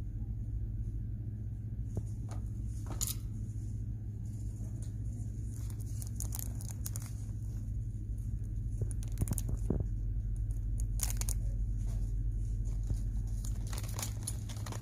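Plastic packaging on store merchandise crinkling now and then as it is handled, over a steady low hum.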